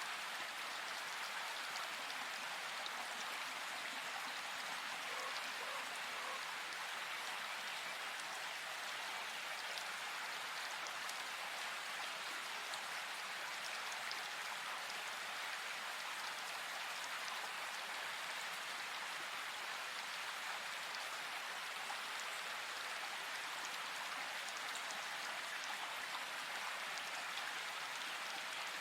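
Steady rain hiss with faint scattered drop ticks, even throughout; no distinct bird calls stand out.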